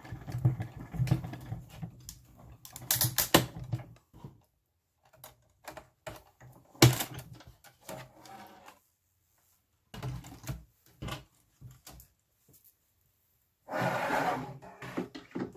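Manual die-cutting and embossing machine hand-cranked as a cutting-plate sandwich with an intricate metal die rolls through it: a low rumble with rapid clicks for about four seconds. Scattered clicks and knocks from the plates and machine follow, one sharp click about seven seconds in, and a short scraping rustle near the end.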